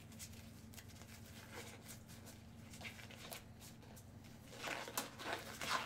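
Faint handling noises: scattered small clicks and taps, then a louder stretch of rustling and crinkling in the last second or so, with a faint steady hum underneath.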